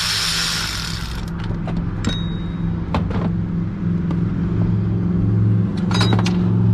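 A small electric ratchet whirs for about the first second as it spins out a 10 mm tensioner bolt. Sharp metal clinks follow around two, three and six seconds in, one of them a bolt falling and bouncing away, over a steady low hum.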